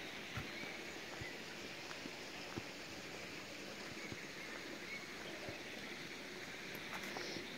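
Steady rush of running water from a small mountain-fed stream, with a few faint soft taps and brief faint bird chirps.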